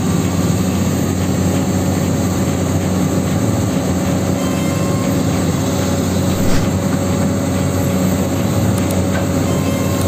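Huina 1594 full-metal RC excavator driving on its metal tracks: a steady electric-motor whir with a mechanical rattle.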